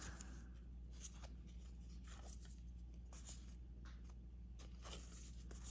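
Trading cards being handled and shuffled through: faint, irregular scuffs and slides of card stock over a low steady hum.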